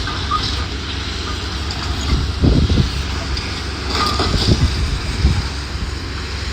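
Heavy demolition machinery working on a building, a steady low engine rumble with louder irregular surges of noise about two and a half seconds in and again around four seconds in.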